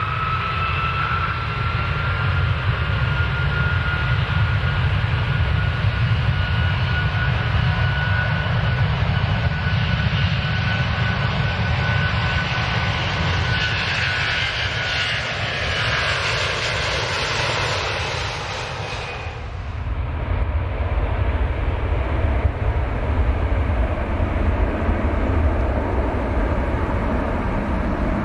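Airplane engines during takeoff: a steady low rumble under a whine that slowly rises in pitch, with a rushing noise building up. About 19 seconds in, the whine and hiss cut off suddenly, leaving only the low rumble.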